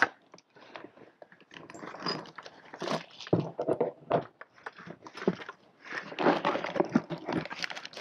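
Rummaging in a plastic bucket of hydraulic kit parts: irregular clicks, knocks and rustling as hoses and metal fittings are handled and the bucket is shifted.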